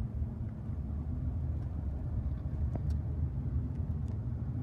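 Car driving slowly, heard from inside the cabin as a steady low rumble of engine and tyres, with a few faint ticks.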